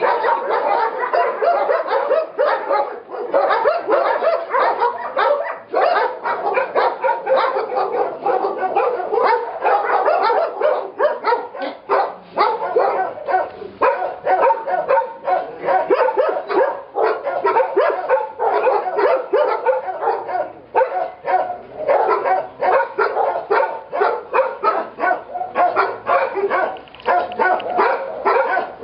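Many shelter dogs barking at once: a dense, unbroken chorus of overlapping barks.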